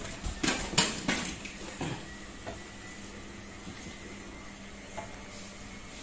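Cardboard box and plastic packaging being handled: a few quick rustles and knocks in the first two seconds, then only a faint steady hum.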